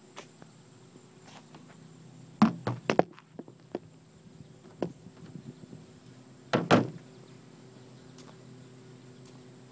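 Knocks and thumps of a phone being handled and set down on a car: a cluster of sharp thumps about two and a half seconds in, a lighter knock near five seconds, and two loud thumps near seven seconds. The dirt bike's engine is not running yet.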